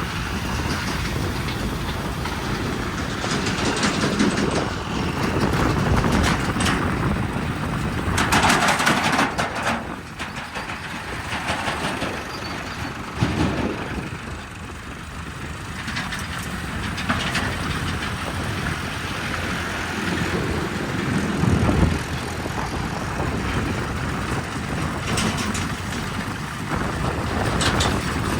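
Heavy diesel machinery running and labouring, a rough, continuous engine din. About eight seconds in comes a short, loud burst of hissing.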